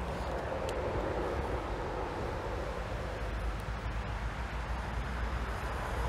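Steady outdoor background noise with a continuous low rumble and no distinct events.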